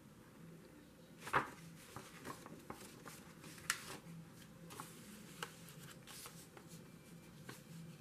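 Paper rustling and crackling as a glossy paper brochure and a sheet of textured paper are handled and laid over each other, a scattering of short crinkles with the loudest about a second and a half in and again near four seconds in.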